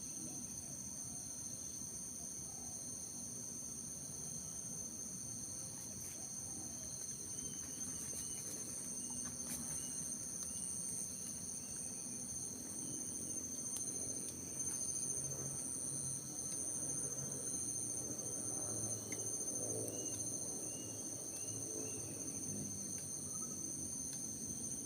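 Forest insects, crickets or cicadas, keeping up a steady high-pitched drone, with a bird giving short chirps in quick runs now and then.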